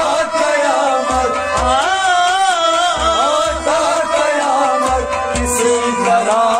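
Kashmiri folk music: a plucked rabab and a bowed sarangi with male singing, over a steady low drum beat.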